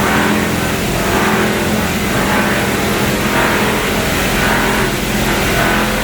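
Copper wire chopping plant machinery running steadily: a loud mechanical din with a low motor hum and a higher grinding noise that swells and fades about once a second.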